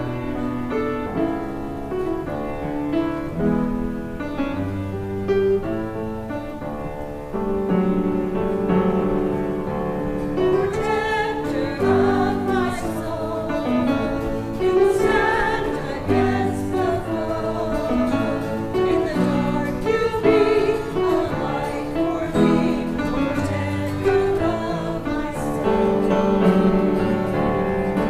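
Church choir singing an anthem with keyboard accompaniment. The keyboard plays sustained chords alone at first, and the voices come in about ten seconds in.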